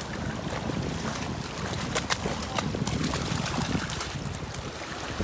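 Shallow seawater splashing and lapping as a dog paddles and scrambles in the surf, with wind noise on the microphone; a few short sharp splashes in the middle.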